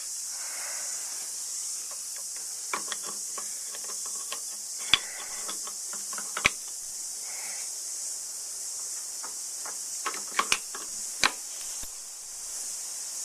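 A spanner working the lock nut on top of a 1945 MacEwans bore pump: scattered metallic clicks and knocks, a few sharper ones in the middle and near the end, over a steady high hiss.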